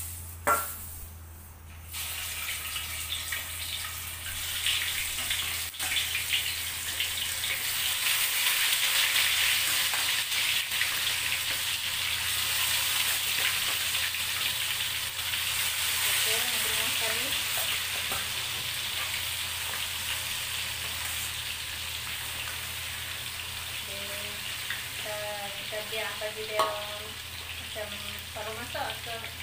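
Chicken pieces sizzling as they fry in hot oil in a wok, a steady hissing that starts about two seconds in as the chicken goes in and swells, then eases slightly, while a spatula stirs them. A sharp knock about half a second in and a shorter one near the end.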